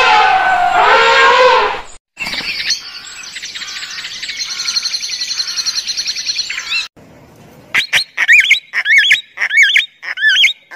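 An elephant's high trumpet call, falling in pitch and ending about two seconds in. Then a few seconds of fast, dense high chirping, then a run of short, looping whistled calls from a white cockatoo.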